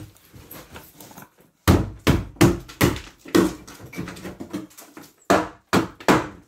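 Repeated hammer blows, about two to three a second, starting about a second and a half in, knocking apart the wooden framing of a bar counter during demolition.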